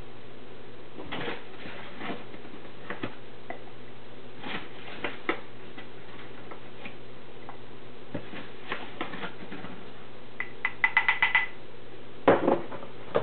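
A tablespoon scooping flour and clinking against a glass: scattered light clicks, then a quick run of about eight taps a little over ten seconds in, and a louder knock near the end.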